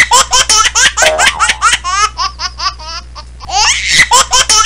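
Laughter sound effect: high-pitched, rapid ha-ha-ha laughing in two runs, with a brief dip about three seconds in.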